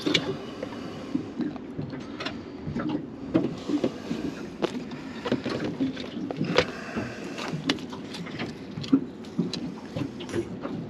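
Irregular knocks, taps and rustles from fish and gear being handled in a small boat, over a steady low background rumble.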